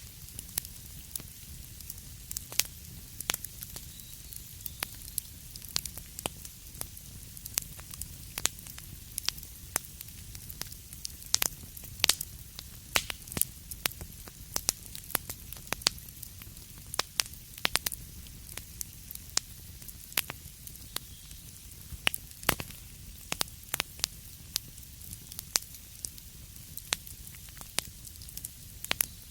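Wood fire crackling in a fireplace: irregular sharp pops and snaps, a few a second, over a low steady rumble and hiss.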